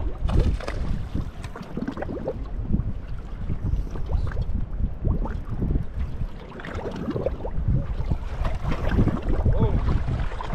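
Wind rumbling on the microphone, with choppy waves slapping against the hull of a bass boat.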